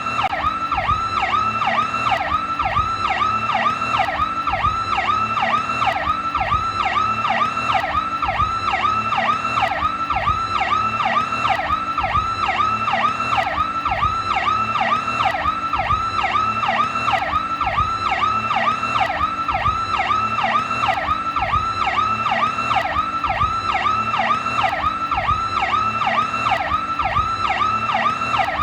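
Federal Signal PowerCall electronic police siren sounding without pause in a fast yelp: its tone sweeps quickly down and back up, over and over at an even pace.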